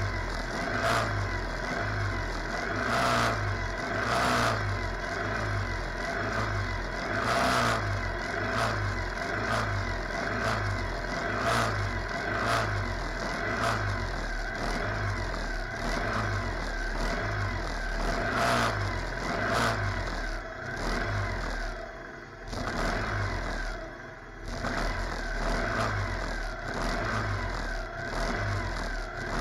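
Kart-cross buggy engines of the 602 cc class idling on the starting grid, with repeated short throttle blips. The sound dips briefly twice near the end.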